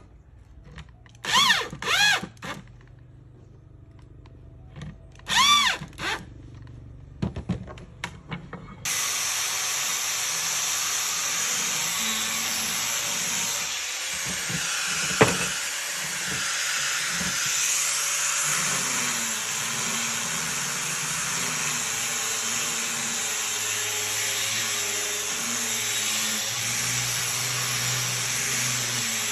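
Cordless drill boring into a wooden cabinet door frame: two short runs, each spinning up and winding down in pitch, then a few quick blips of the trigger. About nine seconds in, a handheld disc sander starts and runs steadily with an even hiss, with one sharp click partway through.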